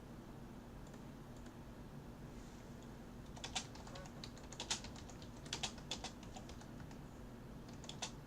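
Computer keyboard typing: light keystrokes, single and in short clusters, starting about three seconds in.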